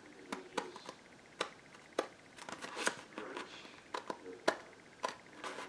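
Scissors snipping a slit into a layer of paper: about a dozen short, sharp snips at an uneven pace, a few of them close together in the middle.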